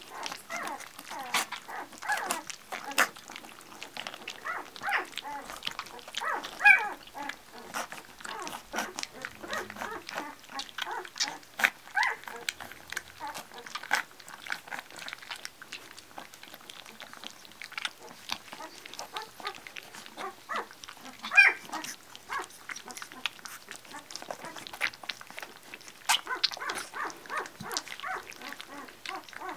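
Yellow Labrador puppies lapping and nosing at a stainless steel saucer feeding dish: a busy patter of small wet clicks and taps against the metal, with a short squeaky puppy whimper twice, about seven seconds in and again about twenty-one seconds in.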